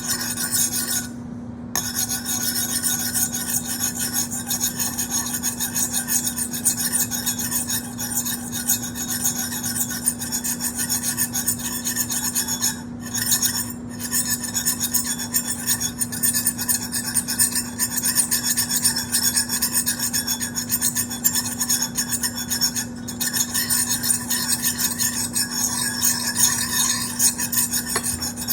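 A continuous fast, scratchy scraping noise over a constant low hum, with a short break about a second in and a few brief dips later.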